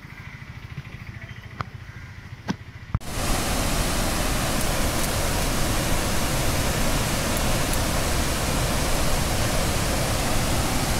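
Muddy floodwater pouring through a dam's open spillway gates: a loud, steady rush of water that starts abruptly about three seconds in. Before it there is a quieter low rumble with a few sharp clicks.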